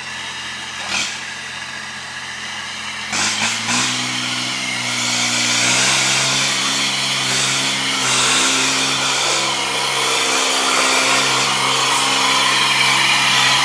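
A heavy work truck's engine running and revving up about four and six seconds in, then held at higher revs under load, the sound of a stuck truck straining to get free. A few short knocks come in the first few seconds.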